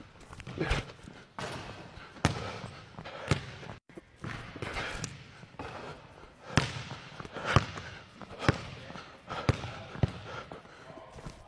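A basketball being dribbled on a hardwood gym floor: single bounces roughly a second apart, with a longer pause near the middle.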